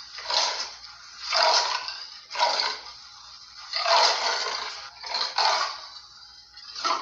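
A snarling sound effect: a run of about six short, harsh, raspy snarls, each under a second, separated by brief pauses.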